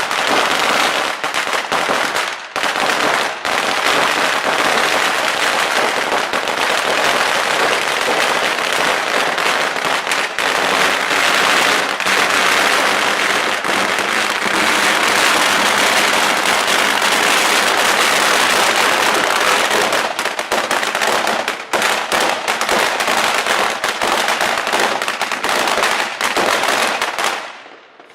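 A 100,000-shot firecracker string going off in a continuous, rapid crackle of small bangs, dying away near the end.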